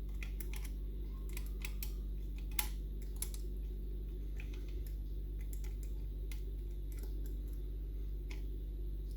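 Light, irregular clicks and ticks of homemade picking tools working the levers inside a Union Strongbolt lever mortice lock, over a steady low hum.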